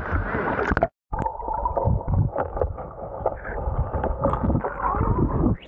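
Rushing, splashing water of a waterfall, loud and uneven, with a short dead-silent gap about a second in where the recording is cut.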